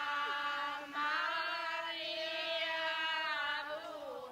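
Processional hymn sung by a group of walking women, slow, with long held notes that glide between pitches and a short breath break about a second in.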